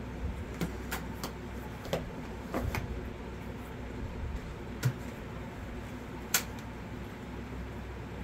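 Scattered light clicks and knocks from small objects being handled at a work table, the two sharpest about five and six and a half seconds in, over a steady low hum.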